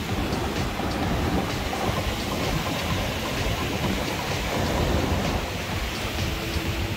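Waves breaking on the rocks below the pier, with wind buffeting the microphone: a steady, rough rush of surf and wind noise.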